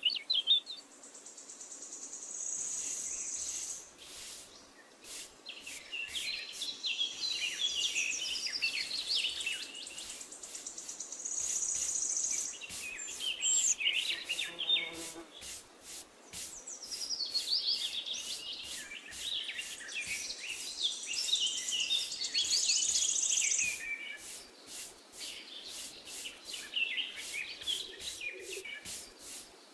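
Birds chirping and singing over a high insect buzz that comes and goes several times.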